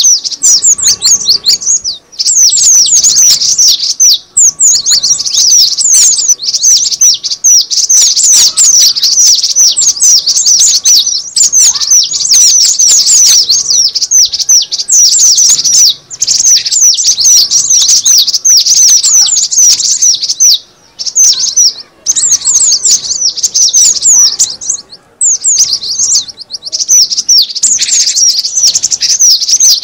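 Gelatik batu (cinereous tit) calls played as a bird-trapping lure: a dense, near-continuous stream of rapid, high chirps, broken by a few short pauses.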